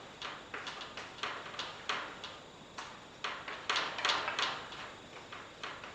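Chalk writing on a blackboard: a run of short, irregular taps and scratches as symbols are written, the loudest cluster about four seconds in.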